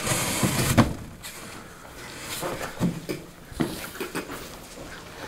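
Cardboard box flaps banging and rustling as a person bursts out of a large box, followed by scattered short knocks and stifled, muffled laughter.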